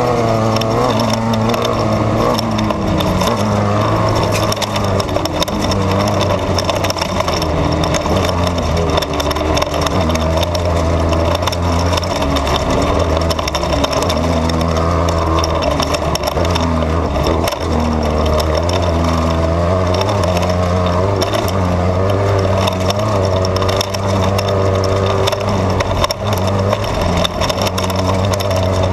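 Off-road desert race car's engine running hard from inside the cab, its revs rising and falling continually. Under it runs a dense rattle and clatter of the car over rough ground.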